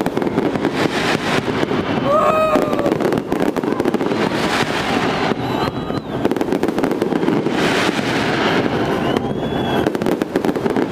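Fireworks display going off in a dense, continuous run of bangs and crackling, with crowd voices and a few short rising or falling cries or whistles over it.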